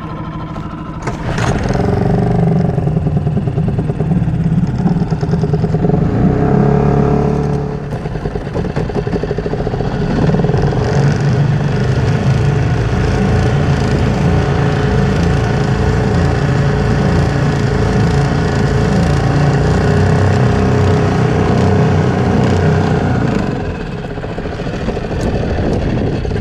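Small boat outboard motor running after a choke-out start. It is throttled up about a second in and held at a steady running speed, easing off near the end.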